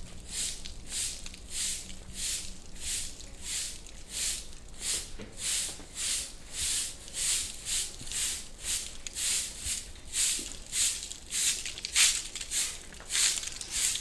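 Short handleless straw broom sweeping sandy dirt ground in quick, even strokes, a dry swish about three times every two seconds.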